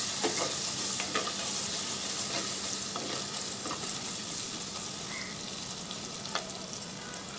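Chopped onions sizzling in hot mustard oil in an earthenware pot, stirred with a wooden spatula that scrapes and knocks against the pot now and then. The sizzle slowly quietens.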